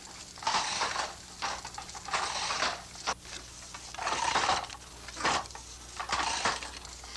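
Wooden hand loom being worked: a rhythmic swishing with sharp wooden knocks, repeating about every one and a half to two seconds.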